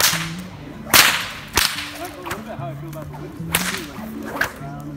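Leather bullwhip cracking several times: sharp, sudden reports, the loudest about a second in, with others spread through the rest of the time. Faint chatter sits underneath.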